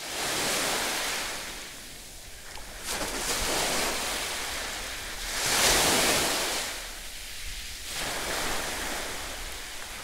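Sea surf washing onto a beach, swelling and fading every two to three seconds.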